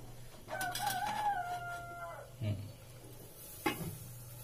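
A rooster crows once: one call of almost two seconds, wavering at first and then held. Then come two short knocks as the glass lid is set onto the aluminium steamer pot.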